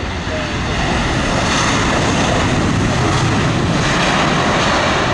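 Airbus A320's jet engines in reverse thrust during the landing rollout: a loud rushing roar that swells over about the first second, holds, and starts to fade near the end.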